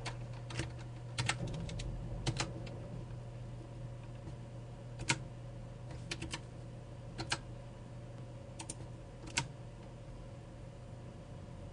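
Computer keyboard keystrokes: a dozen or so single clicks spaced irregularly, over a faint steady low hum.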